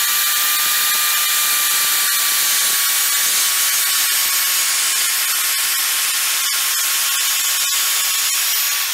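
Skilsaw circular saw cutting through a red cedar stair stringer: a steady high motor whine over the hiss of the blade in the wood, starting to wind down at the very end.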